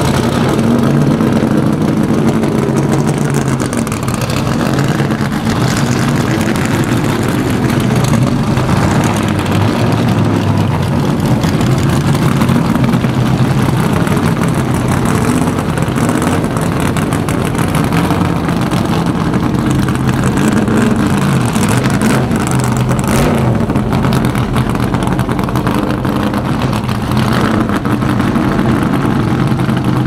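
Several vintage Trans-Am Camaro and Boss 302 Mustang race cars with V8 engines, running loud and steady at low revs as they roll slowly past.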